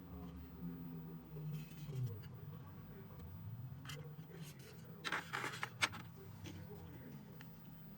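Low hum, with a brief cluster of scraping and clicking about five seconds in that ends in one sharp click.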